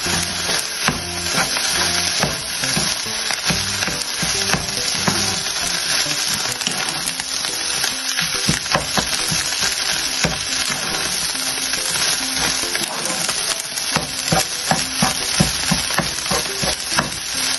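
Fried rice with egg sizzling in a pan while a wooden spatula stirs and scrapes through it, with frequent light clicks of the spatula against the pan.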